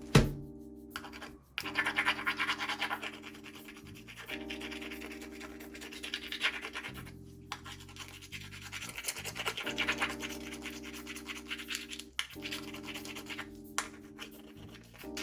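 Mussel shells being scrubbed clean, a rough scraping and rubbing in repeated strokes that comes in stretches of a few seconds, over soft background music with held tones.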